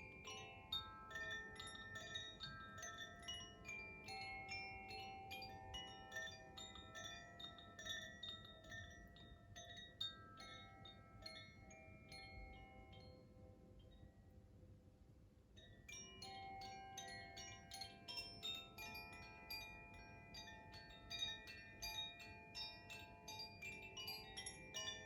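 Koshi chimes being swung and played, the clapper inside each bamboo tube striking its tuned metal rods in a shimmer of many overlapping ringing notes. The notes thin out to a few fading tones around the middle, then fill in again.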